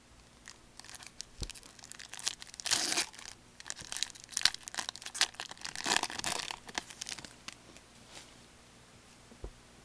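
Crinkling and tearing of a foil trading-card pack wrapper being ripped open and handled. Scattered crackles, with two denser bursts about three and six seconds in.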